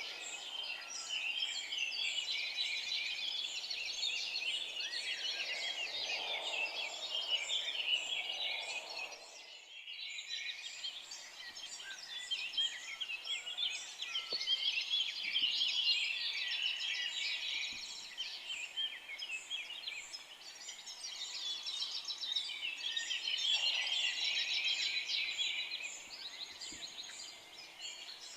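Forest dawn chorus: many songbirds singing at once, a dense overlapping mix of chirps, trills and whistles, with a brief break about a third of the way in.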